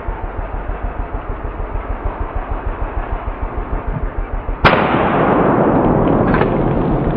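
A single 12-gauge pump-action shotgun shot about four and a half seconds in, cracking sharply and followed by loud, lasting noise. Before it, a muffled noise pulses about five times a second.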